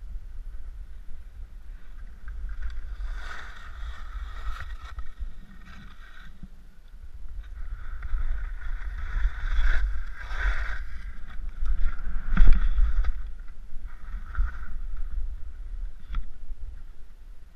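Skis sliding and turning on snow, with several hissing swishes of snow as they carve and scrape, the longest about eight to eleven seconds in. Underneath runs a constant low rumble of wind on the microphone.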